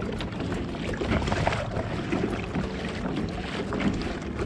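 Water sloshing and slapping against a kayak hull on open ocean, with wind buffeting the microphone.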